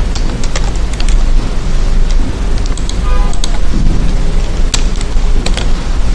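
Loud steady hiss and low rumble of a noisy microphone. Scattered sharp clicks of computer keyboard keys run through it as words are typed.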